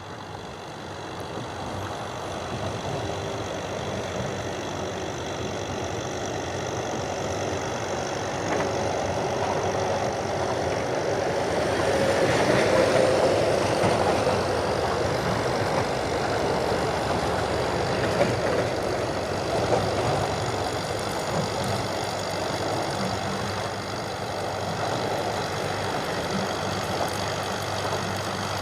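John Deere 5720 tractor's diesel engine running under load while pulling a round baler through straw. It grows louder over the first dozen seconds as it comes closer, then holds steady.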